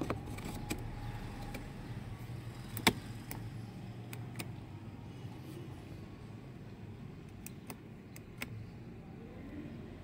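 Small plastic clicks and taps as an aftermarket push-button switch is pressed into a blank slot in a car's dashboard switch panel, with one sharp snap about three seconds in as it seats. A low steady hum sits underneath.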